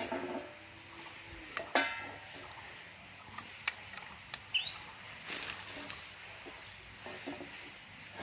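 Scattered knocks and clicks of firewood and a metal pan being handled on an open wood fire. The loudest is a single sharp knock with a short ring about two seconds in. A bird gives one short rising chirp about halfway through.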